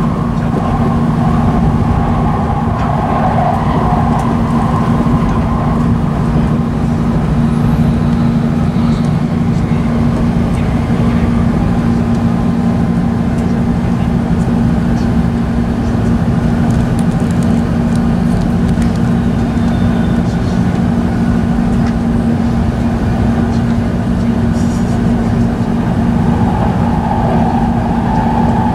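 E5 series Shinkansen running at speed, heard from inside the passenger cabin: a steady rumble from the wheels and running gear with a constant low hum.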